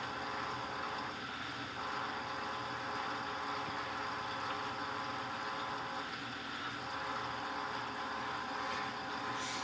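Electrolux LTC15 washing machine running with a steady motor hum.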